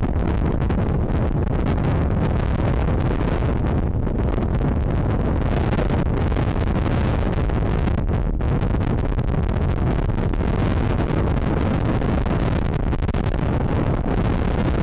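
Wind buffeting the microphone, a steady low rumble.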